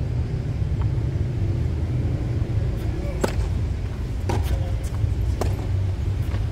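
Tennis ball being struck by rackets and bouncing on a hard court during a rally: a handful of sharp pops, over a steady low rumble.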